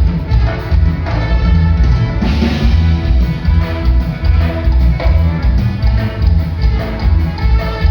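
Band music with a steady, heavy bass and drum beat.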